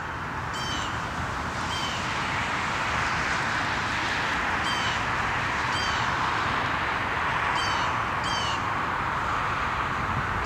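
Short, high bird chirps repeating every second or two over a steady background hiss.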